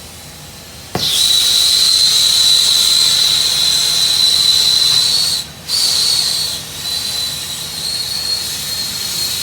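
Gas soldering torch hissing, with a steady high whistle in the flame. It starts suddenly with a click about a second in and cuts out for a moment about halfway through.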